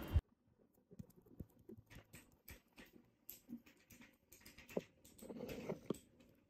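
Faint scattered ticks and light taps from a small plastic container being handled and tapped to sprinkle powdered food, with a couple of sharper clicks and a short rustle near the end.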